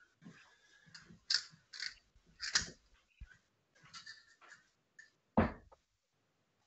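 Steel-tip darts pulled from a bristle dartboard, with light clicks and rustling, then a single dart hitting the board with a sharp thud about five seconds in.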